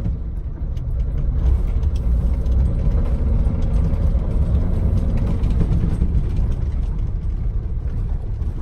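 Datsun 260Z's 2.6-litre straight-six on triple Mikuni carburettors, running steadily as the car is driven along the road.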